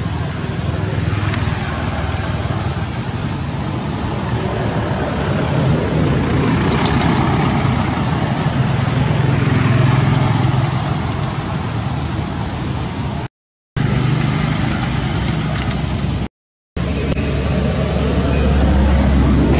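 Steady, loud outdoor background rumble, cut off twice by brief drops to silence.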